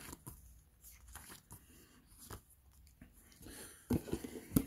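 Faint rustling of paper pages as a booklet is leafed through by hand, followed near the end by handling noise and two soft thumps as the booklet and a plastic Blu-ray case are set down and picked up on a quilted bedspread.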